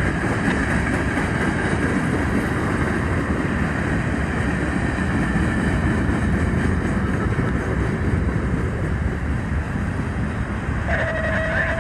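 BNSF manifest freight train rolling past with a steady, continuous rumble and rail noise.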